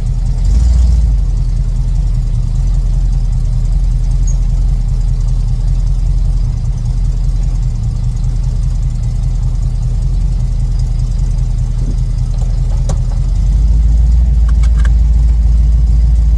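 Small-block Chevy 350 V8 running through its new exhaust: a steady deep rumble that gets louder over the last few seconds.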